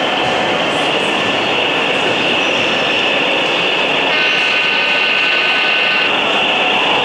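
Sound decoder of an HO-scale B23-7 model diesel locomotive playing a steady diesel running sound through its small speaker. About four seconds in, a multi-note horn starts and holds for nearly three seconds.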